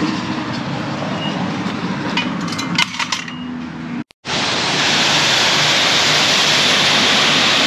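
High-pressure water hissing from a self-serve car wash wand as it sprays a pickup truck's body, wheel and the wet ground, with a few clicks about three seconds in. The spray breaks off for an instant about four seconds in, then comes back louder and steady.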